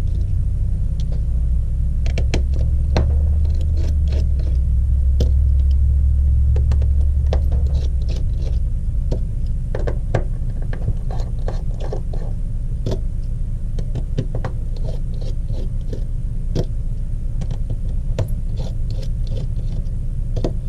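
Scattered small clicks and light scrapes of a small Phillips screwdriver and tiny screws being worked out of a phone's motherboard, over a steady low rumble that is heaviest in the first several seconds.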